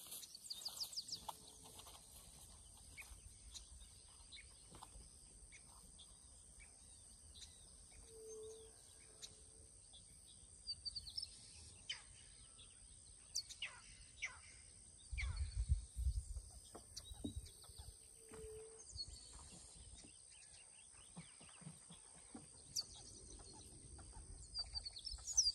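Quiet outdoor ambience: a steady high-pitched buzz throughout, a few short soft calls, and scattered faint clicks. A brief low rumble comes about fifteen seconds in.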